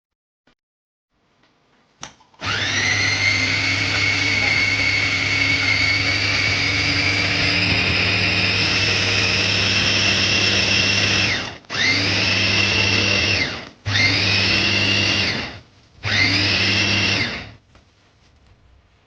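Wancle 350 W electric food chopper's motor running: one long run of about nine seconds, then three short pulses. Its whine rises as it spins up and drops each time it stops.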